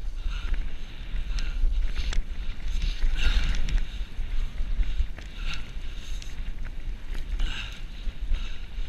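Wind buffeting a fast-moving camera's microphone as a low, steady rumble, with scattered sharp knocks and rattles from bumps on a rough dirt track and recurring bursts of hiss.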